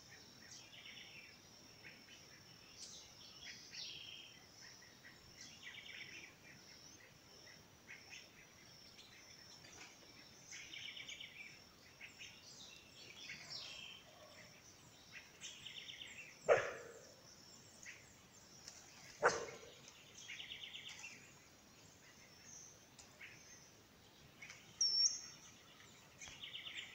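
Outdoor nature ambience: a steady high insect drone, with birds chirping in short repeated phrases every few seconds. Past the middle come two loud, short calls about three seconds apart, and a brief high whistle near the end.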